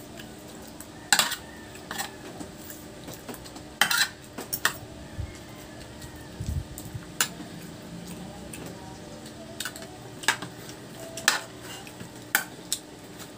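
Spoons and forks clinking and scraping on stainless steel plates while eating, in scattered sharp clicks, with a faint steady hum underneath.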